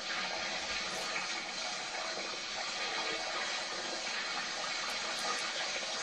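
Water from a hose rushing steadily inside a steam ploughing engine's boiler during a washout, flushing out loose scale and sludge.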